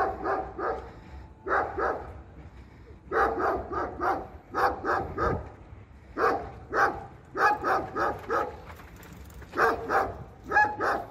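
Stray street dog barking over and over, in quick runs of two to four barks about every second and a half.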